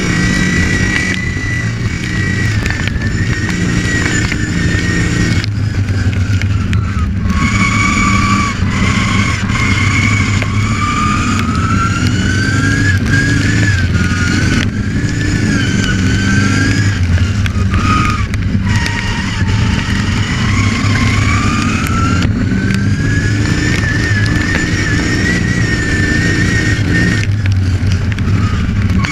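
Racing ride-on lawn mower's engine running hard, a high whine that rises and falls with the throttle and dips briefly several times.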